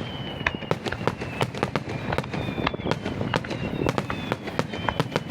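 Fireworks going off in a dense run of sharp pops and crackles, several a second, with faint high whistling tones sliding slowly lower.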